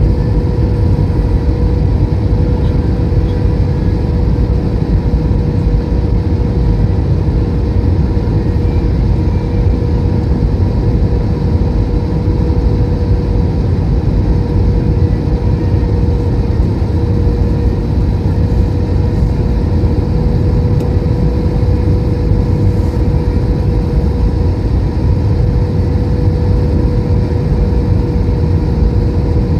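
Steady cabin noise inside an Airbus A321 in flight: a constant roar of engines and rushing air with an unchanging hum tone over it.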